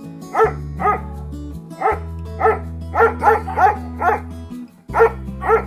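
A dog barking about ten times in short, irregular runs, over background music with sustained low notes.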